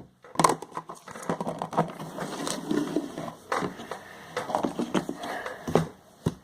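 Hands handling homemade slime and a glue bottle at a table: irregular small clicks and soft taps throughout.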